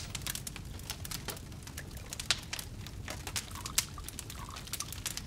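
Wood fire crackling in a stone stove, with many irregular sharp pops and snaps over a low rumble.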